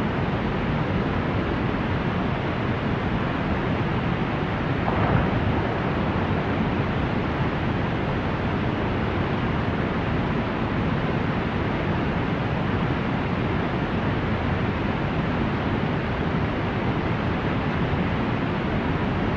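Steady, unbroken rushing of tsunami floodwater, a dense even roar. A brief faint higher sound comes about five seconds in.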